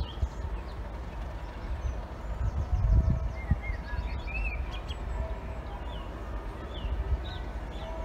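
Low rumble of a standing diesel-hauled train's locomotive idling, with birds chirping briefly from about two seconds in.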